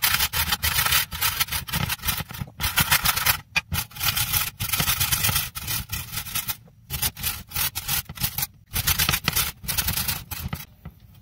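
Peeled carrots being grated by hand on a metal box grater in a metal pot: rapid rasping strokes in a steady run, with two short pauses and a stop shortly before the end.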